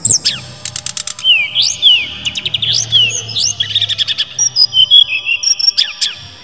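Caged brown-chested jungle flycatcher (sikatan rimba dada coklat) singing loudly: a fast, unbroken song of quick rising and falling whistled slurs mixed with rapid ticking trills and clicks.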